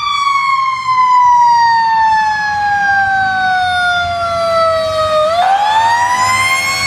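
Fire truck siren wailing: its pitch falls slowly for about five seconds, then climbs again near the end.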